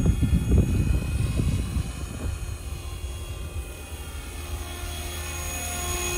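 Radio-controlled model helicopter (Super Voyager E) flying: a steady whine from its drivetrain and rotors, holding several even pitches. Low gusty rumbling on the microphone comes and goes in the first two seconds.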